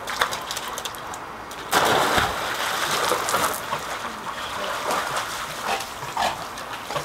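A Labrador retriever jumping into a swimming pool with a loud splash about two seconds in, then splashing as it swims after a floating toy.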